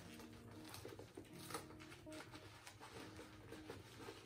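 Quiet background music, with faint rustles and taps as a leather crossbody bag is handled and turned over.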